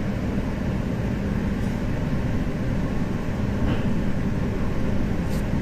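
Inside a JR East 701 series electric train while it runs: a steady rumble of wheels on rail with a steady hum beneath it.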